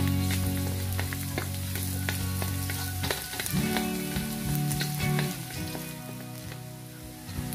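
Minced garlic sizzling in hot oil in a stainless steel wok, with a wooden spatula stirring and scraping against the metal in short clicks. Low held notes of background music run underneath.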